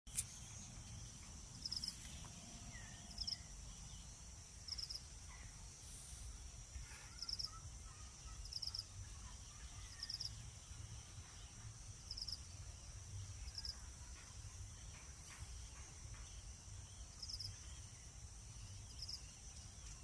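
Insects droning steadily at a high pitch, with a short three-pulse chirp repeating about every one and a half seconds, over faint scattered bird calls and a low rumble.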